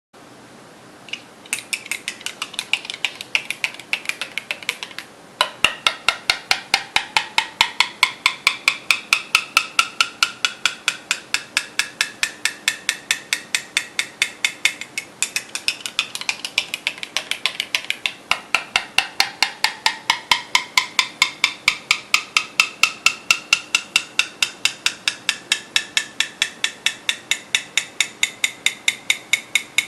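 A spoon tapping the bottom of a mug of coffee with milk and sugar, about four taps a second. The ringing note of each tap climbs steadily over several seconds, drops low twice and climbs again. This is the hot chocolate effect: stirring fills the drink with tiny bubbles that lower the note, and it rises as they clear.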